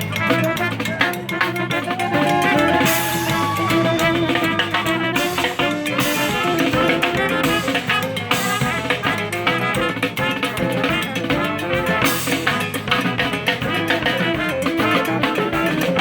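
A brass band playing live: horns playing a melody over a steady drum beat.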